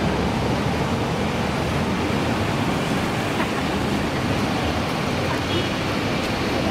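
Steady street traffic noise, with a vehicle engine running as the rescue truck drives off; no siren sounds, only its warning lights are on.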